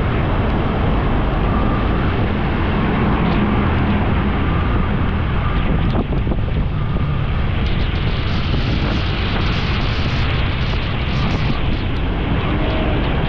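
Motorcycle running at road speed with wind rushing over the microphone, a steady rumble and hiss that grows louder about eight seconds in.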